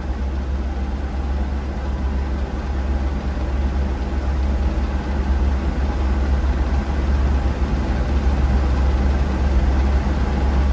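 A vehicle's engine running with a steady low rumble, growing slightly louder over the last few seconds.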